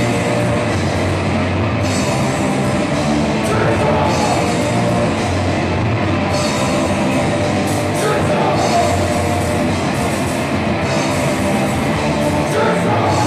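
Punk rock band playing live: electric guitars and a drum kit, with a singer's vocals over the top.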